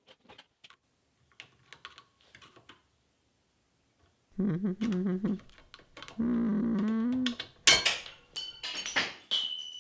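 Small metal clicks as gear-lever parts and a circlip are handled. Then a man's voice sounds two drawn-out wordless notes, and near the end come loud sharp metallic clicks and a clatter with a brief high ringing tone.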